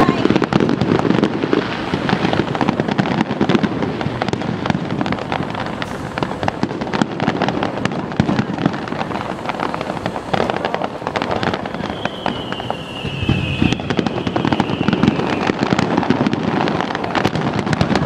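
Fireworks display: a dense, continuous run of bursts and crackling, with a whistle falling in pitch about two-thirds of the way through.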